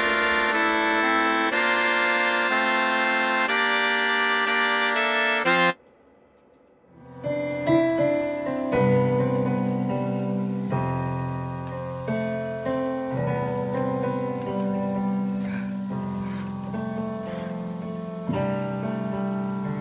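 Music with an accordion-like sound and quick notes cuts off suddenly about six seconds in. After about a second of near silence, a keyboard is played with slower chords and held bass notes.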